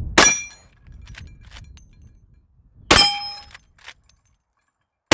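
Two .357 Magnum shots from a Henry Big Boy X lever-action rifle, about three seconds apart, each followed at once by the short ringing clang of a steel target being hit.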